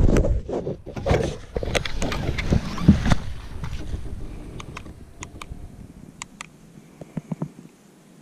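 Handling noise of gloved hands and clothing rubbing close to the microphone, heavy and rumbling for the first three seconds, then much quieter. Later come a few light clicks as the buttons of a small digital hanging scale are pressed.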